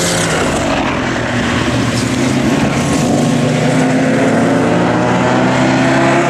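Race car engines running, a loud steady drone with a low hum and higher tones that drift only slightly in pitch.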